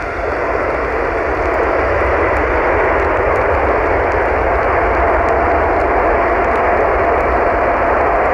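Airbus A380's four jet engines at takeoff power: a loud, steady roar with a faint steady tone running through it, swelling in the first second and then holding.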